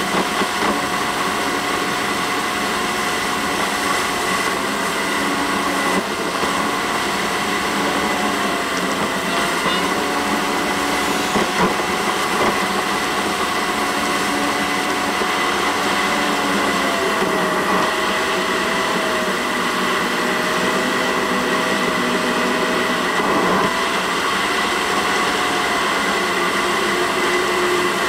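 In-car driving noise of a 2014 Ford Fiesta ST, engine and tyre noise on the highway, played back eight times fast so that it becomes a steady high-pitched whine like a small motor. The pitch dips a little about two-thirds of the way through.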